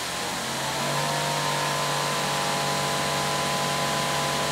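Greenworks Pro 3000 PSI electric pressure washer, with its brushless induction motor and pump, running under load with water spraying from the nozzle: a steady hiss over a constant hum. The hum shifts pitch about a second in, then runs steady.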